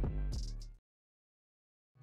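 Background music with a beat fading out within the first second, then about a second of dead silence before another music track starts near the end.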